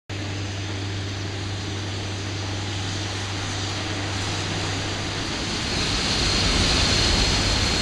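Steam locomotive 01 1066 and its train rolling through the station: a steady rumble and hiss over a low hum. It grows louder about six seconds in, when a thin, high, steady squeal joins.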